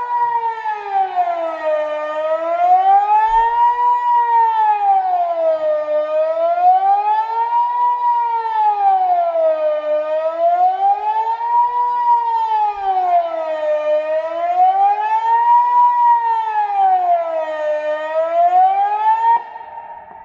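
Kockum Sonics KS DELTA-4 electronic civil-defence siren sounding the Swiss general alarm: a very loud, close wail rising and falling about every four seconds. It cuts off abruptly near the end, at the close of the alarm cycle.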